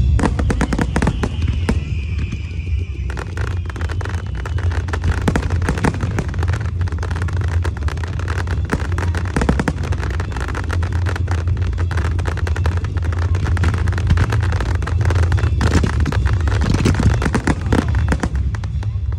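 A dense fireworks barrage, with shells bursting and multi-shot cakes firing in rapid succession. Crackling and a steady deep rumble run throughout. A falling whistle sounds in the first few seconds.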